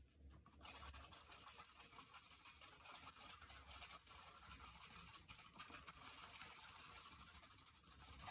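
Faint, steady scratchy scraping that starts about half a second in and keeps on.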